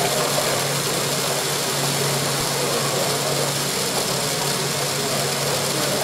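Meccano model side-rod stationary engine running, driven by an electric motor: a steady mechanical whirr and hum over the general noise of an exhibition hall.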